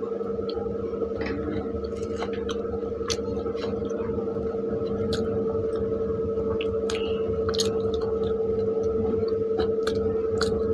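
Close-up eating of pav bhaji by hand: chewing, wet squishing of bread soaked in gravy, and scattered mouth clicks and smacks. A loud steady hum runs underneath throughout.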